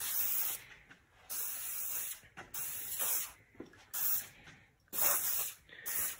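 Aerosol sprayer hissing in about six short bursts, each under a second long, as a coat is sprayed onto the edges of a plastic console.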